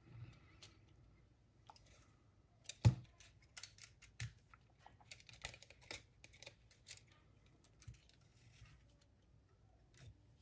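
Irregular small clicks and taps of hands handling an Aiwa HS-PL777 cassette walkman's tape mechanism and circuit board, with one louder knock about three seconds in.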